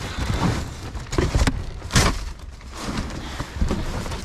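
Rummaging through trash in a dumpster: scattered knocks, scrapes and rustling as items are shifted, with one sharp knock about two seconds in.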